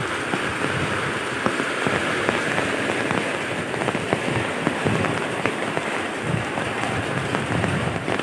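Heavy rain falling steadily, with many sharp individual drop impacts heard through the downpour.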